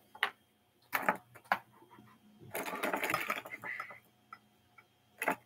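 Hands handling small plastic mini football helmets on a wooden tabletop: a few light clicks and knocks, a second or so of quick scratchy clattering in the middle, and one more click near the end.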